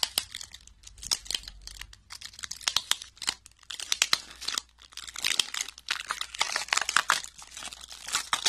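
Tape being peeled and picked off the rim of a clear plastic deli cup, with the thin plastic lid crinkling and crackling in rapid, irregular crackles.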